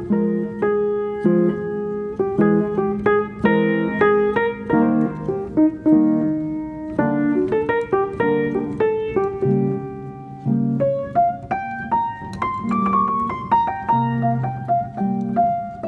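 Background piano music: a continuous flow of single notes and chords.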